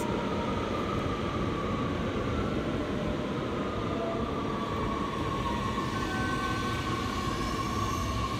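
Eight-car NS Sprinter Lighttrain electric train arriving, with a steady whine over the rumble of its cars.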